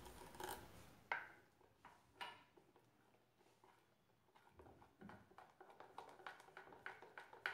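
Faint, soft squishes and clicks of a hand beating besan batter in a bowl. They come in a quick, irregular run over the last few seconds, with near silence between the few earlier ones.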